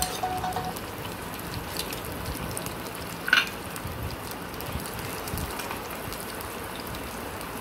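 Ginger-garlic paste frying in hot oil with onion paste: a steady sizzle with fine crackles, and one brief, sharper sound about three seconds in.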